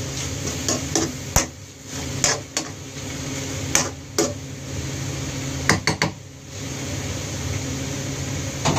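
Metal ladle knocking and scraping against a wok while cuttlefish pieces are stirred: irregular sharp clanks, with a quick cluster about six seconds in, over a steady low hum.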